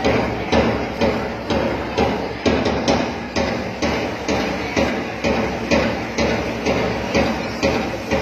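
A loud, steady percussive beat, about two sharp strikes a second, evenly spaced: the drum beat the children's pom-pom drill is danced to.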